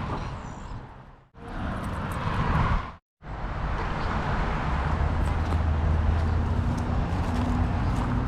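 Road traffic: cars passing on a busy road, with a steady rush of tyre and engine noise. The sound drops out briefly twice where the recording is cut.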